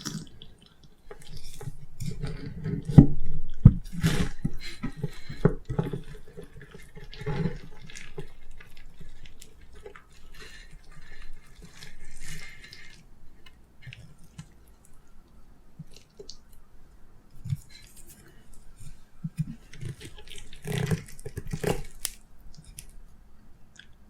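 Close-miked eating sounds of steamed kabocha pumpkin: irregular utensil clicks and taps with wet, sticky chewing. Two heavy low thumps come about three to four seconds in.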